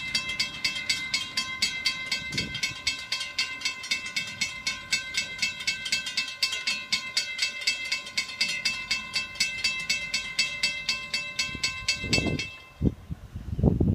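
Railroad grade-crossing bells ringing with rapid, evenly spaced strokes while the gate arms lower, warning of an approaching train. The bells stop about twelve and a half seconds in, once the gates are down, and a few low rumbles follow near the end.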